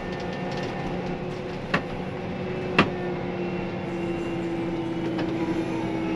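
Farm machine's engine running steadily, heard from inside the cab, with two sharp clicks about two and three seconds in. One tone in the hum rises slightly about four seconds in.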